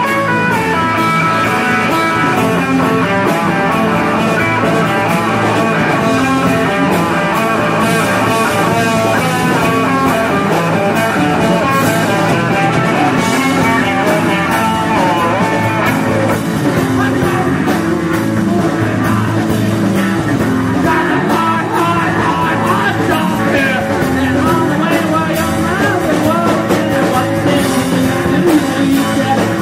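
Live rock band playing, with electric guitar to the fore over the rest of the band.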